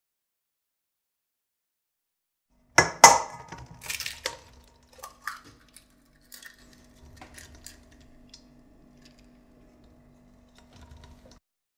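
Kitchen clatter from a stainless steel mixing bowl: a burst of sharp clinks and knocks of metal and crockery a few seconds in, the loudest near the start, then lighter scattered clinks and handling noises as the hands work in the bowl, over a faint steady hum.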